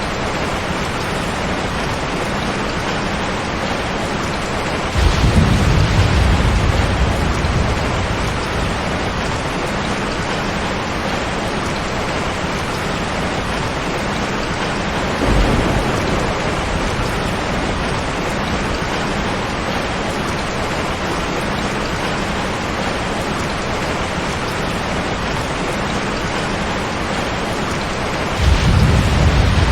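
Steady heavy rain drumming on a tin roof, with deep rolls of thunder three times: one about five seconds in that lasts a few seconds, a shorter one around the middle, and another starting near the end.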